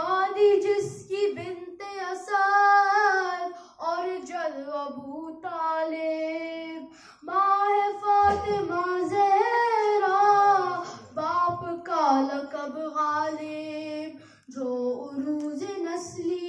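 A boy singing an Urdu devotional manqabat solo into a microphone, in long sliding melodic phrases with short breaks for breath.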